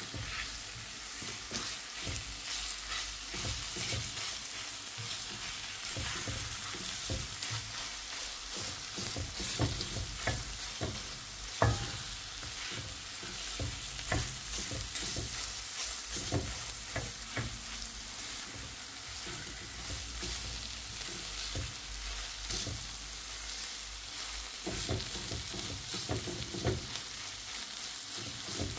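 Grated radish and flaked rohu fish sizzling in a frying pan as a spatula stirs and scrapes them, with a steady hiss and repeated scraping strokes and one sharper knock about twelve seconds in.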